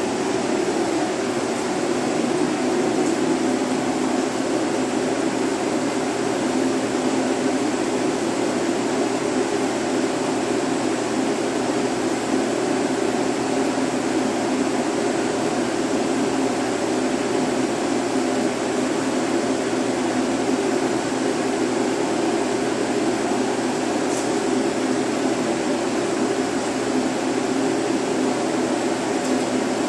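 Steady rushing air of a ventilation fan running, even and unchanging throughout.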